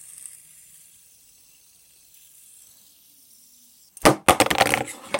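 Gold fidget spinner whirring faintly as it spins down, with a thin high hiss that fades over the first few seconds. About four seconds in comes a loud burst of rapid knocks and clatter.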